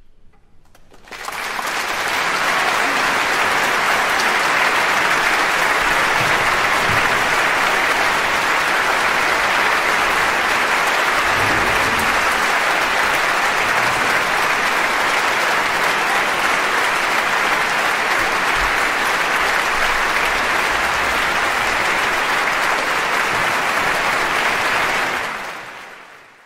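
A loud, steady, dense crackling hiss that starts abruptly about a second in and fades out near the end.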